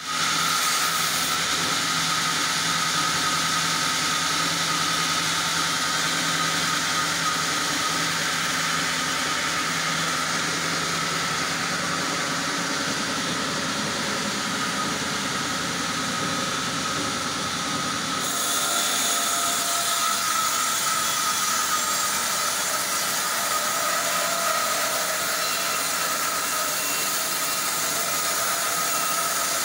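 Horizontal band sawmill, with a 15 kW main motor, running its band blade steadily through a dry oak log: a continuous loud hiss of blade and motor with a steady high tone. About two-thirds of the way through, the low hum drops away and the hiss grows brighter.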